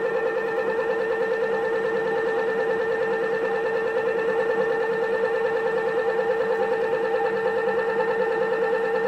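Homemade coil-driven flywheel pulse motor running: a steady hum at one pitch with overtones, fluttering quickly and evenly.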